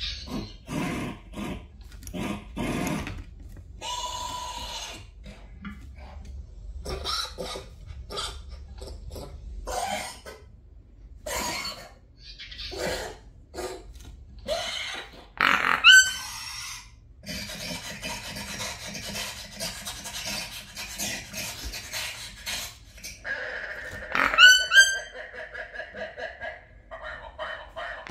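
Recorded dinosaur-style grunts and growls played back in short rough bursts. A pet toucan answers with rising yelping calls: one loud call about halfway and a quick run of them near the end.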